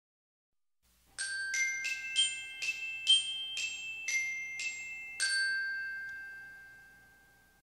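A short jingle of bell-like mallet notes, glockenspiel-like, about ten notes struck one after another. The last note rings on and fades away. It starts about a second in.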